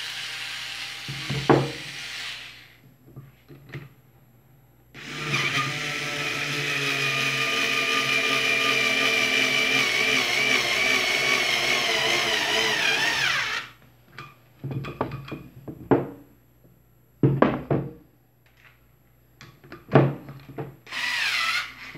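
Multilaser Home 4.8 V cordless screwdriver driving a long screw into a wooden block. The motor runs, stops about two seconds in, then starts again for a steady run of about eight seconds whose pitch wavers toward its end as the screw bites. Several sharp clicks and knocks follow, and a short run near the end falls in pitch.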